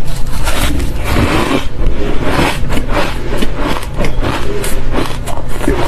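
Fluffy, squeaky ice being bitten and chewed: a dense run of crunches and squeaks.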